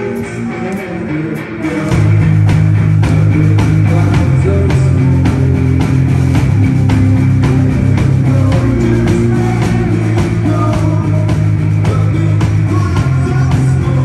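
Rock band playing live on electric guitar, bass guitar and drums. About two seconds in the full band comes in louder, with a heavy bass-guitar low end under steady drum and cymbal hits.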